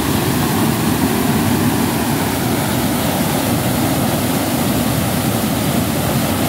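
Floodwater pouring over a reservoir spillway: a loud, steady, deep rush of churning whitewater.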